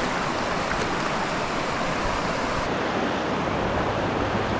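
Fast-flowing stream rushing steadily, its water running high.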